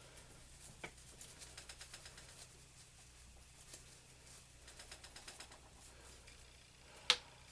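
Small chisel scraping and picking at the dried, hard plaster of a treasure dig block: faint scratchy ticking in two spells, with one sharp tap near the end.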